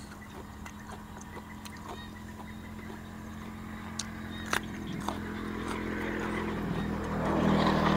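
A motor vehicle passing on a nearby road: a steady engine hum that grows louder through the second half and is loudest near the end. A crisp bite into a raw vegetable about four seconds in.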